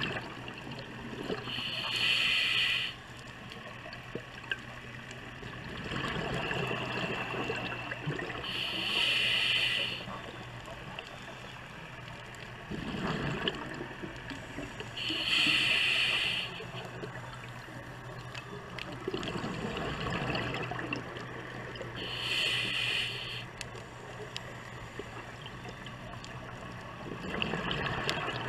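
Scuba diver breathing through a regulator underwater: four slow breaths, each a high hiss on the inhale followed by bubbling on the exhale.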